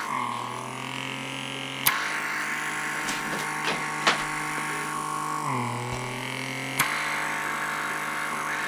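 Lumae Skin microdermabrasion wand's suction motor humming steadily while its tip is worked over the nose. Twice its pitch drops for a second or two and jumps back up with a sharp click, with a few lighter clicks in between.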